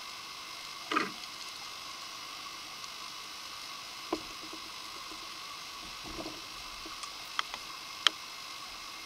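Steady hiss of an underwater camera's recording, with a short falling swish about a second in and a few scattered knocks and sharp clicks; the loudest click comes near the end.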